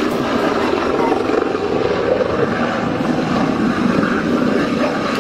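A large transport helicopter flying low overhead: steady rotor chop and turbine noise, loud and unchanging throughout.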